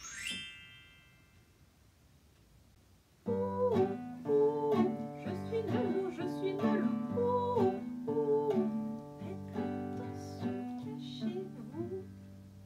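A brief rising whistle-like glide that rings out at the start. After about three seconds of quiet, a nylon-string classical guitar comes in, strummed in a steady rhythm with a moving bass line. A woman's voice slides in and out over it without words.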